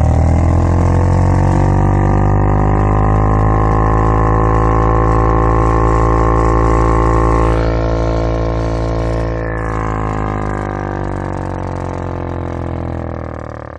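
A car's air conditioner giving a loud, deep, buzzing drone, its pitch rising slightly at first and then holding steady. About eight seconds in its tone changes and it eases down, then it fades away near the end.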